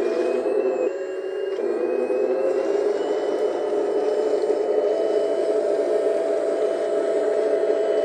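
Heng Long 1/16 Leopard 2A6 RC tank driving and pivoting on its tracks: the electric drive motors and gearboxes whine, rising in pitch in the first few seconds as it speeds up, over a steady engine-like hum.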